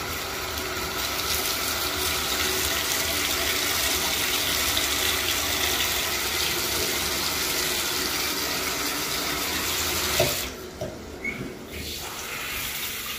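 Water running steadily from a tap during a shower clean. It cuts off about ten seconds in, with a couple of small knocks, and a fainter hiss follows.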